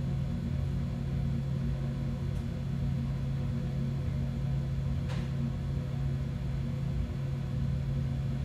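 A steady low hum over a low rumble, with one faint click about five seconds in.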